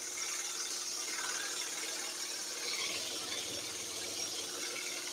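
Scroll saw running steadily, its reciprocating blade cutting slowly through a wooden board.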